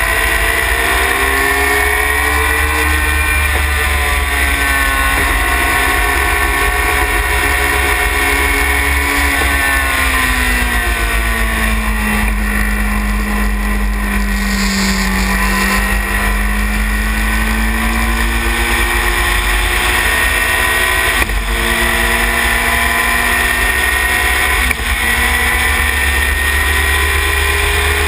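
Yamaha R1 motorcycle engine in a Sylva Phoenix sports racer at speed on track, heard onboard over heavy wind rumble on the microphone. The engine note climbs in steps through the gears, falls to its lowest in the middle while the car takes a bend, then rises again with quick upshifts.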